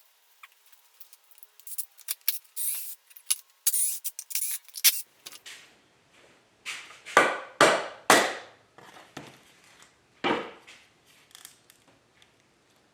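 A plastic casting mold being cut, cracked and peeled away from a cured epoxy-resin casting. First comes a string of small clicks and snaps, then four loud ripping strokes in quick succession, and one more about two seconds later.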